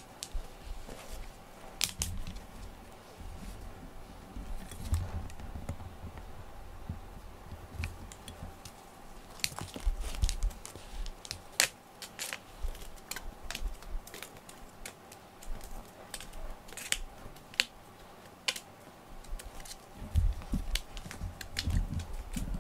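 Scattered light clicks, taps and soft thumps of cats playing with a toy ball dangled on a string into a cardboard scratcher bowl, with a faint steady hum underneath.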